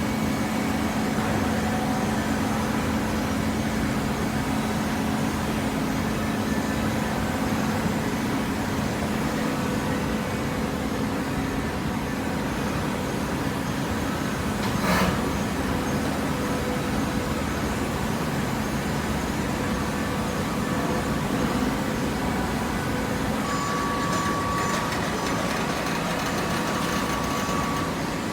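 Industrial hydraulic waste-paper baler running, a steady machine hum from its power unit, with a single knock about halfway through and a thin high tone coming in near the end.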